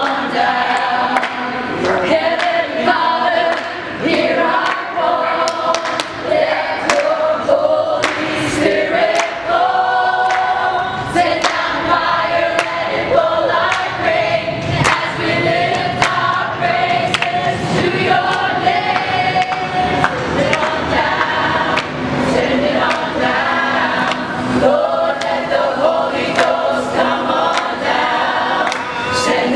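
A mixed choir of many voices singing together without instruments, with hand claps on the beat.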